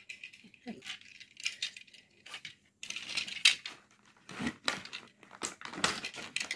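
Plastic toy train set parts and packaging being handled: irregular clattering, clicking and rustling, busier and louder in the second half.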